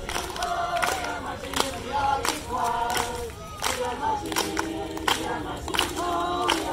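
A marching choir of men and women singing together as they walk, punctuated by irregular hand claps.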